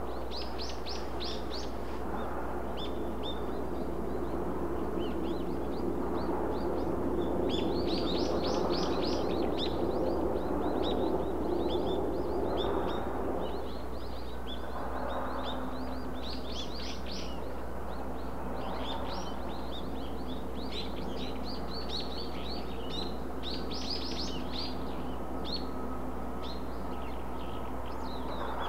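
Small birds chirping in quick clusters of short high notes, over a steady low background rumble. A broader low rumble swells in the first half and fades away about thirteen seconds in.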